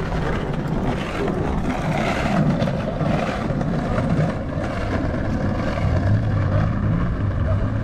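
Steady rumble of distant engines, with a low drone that grows stronger about six seconds in.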